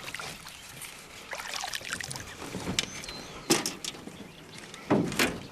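Scattered knocks and thumps in a small john boat, the loudest about three and a half and five seconds in.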